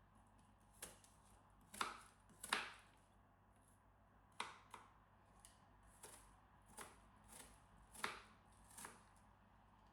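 Knife chopping an apple into small cubes: separate sharp strokes at an uneven pace, about one a second, the loudest a couple of seconds in.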